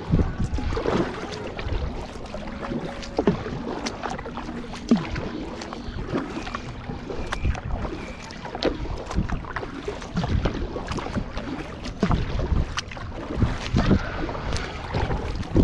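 Kayak paddling: paddle strokes splashing in the water with scattered knocks and clicks, over a low wind rumble on the microphone.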